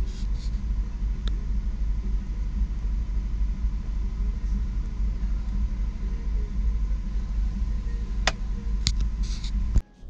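Van engine idling, a steady low rumble heard from inside the cab, with a few sharp clicks near the end.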